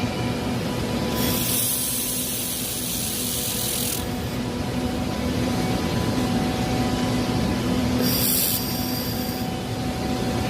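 Laser welding in an industrial workshop: a steady machine hum runs throughout, with two bursts of high hiss as the welder fires, one about two and a half seconds long starting just after a second in, and a shorter one near eight seconds.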